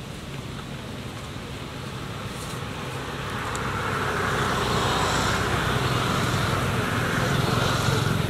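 Steady noise of a passing motor vehicle: a low hum under a hiss that grows louder from about three seconds in and stays up.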